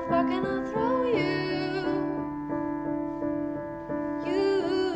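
A woman singing her own song to a Roland FP-80 digital piano. Her voice drops out about a second in, leaving sustained piano chords, and comes back near the end.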